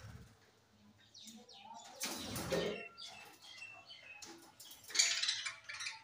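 Flock of budgerigars chirping and chattering with short high calls, with a brief rustling burst about two seconds in and a louder cluster of calls near the end.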